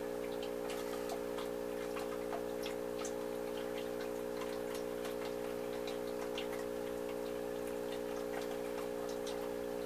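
Air-driven aquarium sponge filters bubbling, the bubbles popping and splashing at the water surface in many small irregular ticks, over a steady hum from the air pump.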